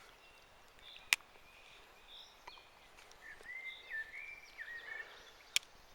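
Two sharp clicks from a Victorinox Ranger Grip 58 pocketknife being handled, one about a second in and one near the end. Faint whistling bird calls sound in the background between them.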